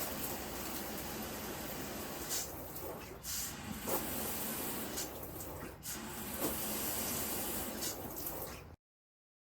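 Shower running: a steady spray of water from the shower head on a newly installed shower arm, a test run for leaks. It cuts off abruptly near the end.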